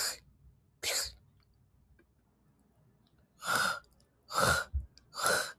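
A woman's voice making isolated voiceless fricative consonants, hissy breath sounds with no vowel. There are two bursts at the start, then, after a pause, three evenly spaced repeats near the end.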